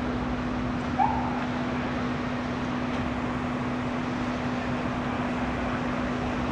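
Steady hiss of traffic on a wet street with a constant low hum under it. A dog gives one short yip about a second in.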